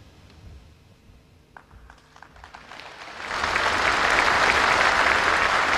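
A few faint clicks in near-quiet, then an audience breaks into applause about three seconds in, swelling quickly to steady, full clapping.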